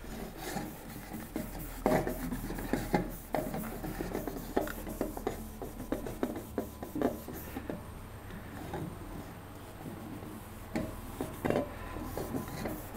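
Cloth rubbing over a ceramic-coated motorcycle exhaust silencer sleeve in quick, irregular wiping strokes, cleaning off indelible marker pen marks.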